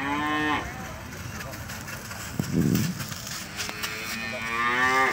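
Young cattle calling close by: a short moo at the start, a low muffled grunt a little past halfway, and a longer moo near the end that rises in pitch and is the loudest sound.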